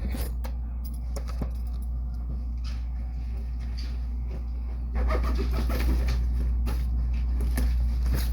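A steady low rumble with scattered small clicks and rustles over it; the rumble gets louder about five seconds in.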